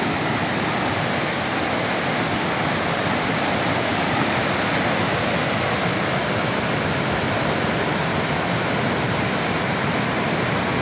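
Loud, steady rushing of a swollen creek's whitewater rapids pouring over and between boulders.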